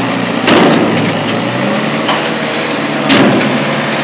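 Bell log loader's engine running steadily as its grapple swings a large log over a steel truck bin, with two loud knocks, about half a second in and again about three seconds in.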